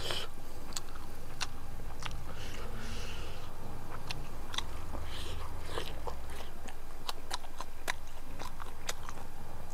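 Close-up mouth sounds of someone eating by hand: biting and chewing with many sharp, irregular crunchy clicks and a few softer wet smacks, picked up by a clip-on lapel mic.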